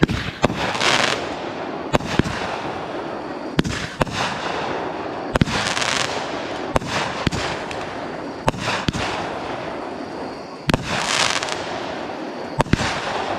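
Ground-launched fireworks firing a long string of shots. Sharp bangs come every second or so, and about three longer hissing swells come roughly five seconds apart.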